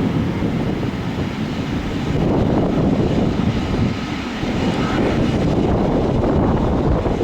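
Jet engines of a Boeing 777-300ER, its twin GE90 turbofans, running at takeoff power: a steady, loud low rumble.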